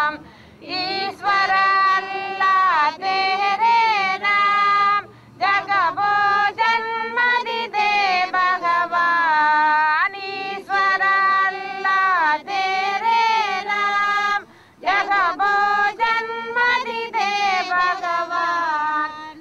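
A high voice singing a slow song in long phrases, the held notes wavering and ornamented, with short breaks between phrases about five and fifteen seconds in.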